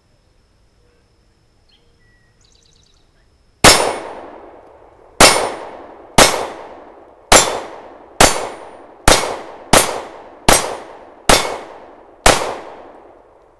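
Glock 26 Gen 3 9mm pistol firing ten shots of 115-grain target rounds, a full magazine, about one shot a second starting about three and a half seconds in. Each shot is a sharp crack that trails off in echo.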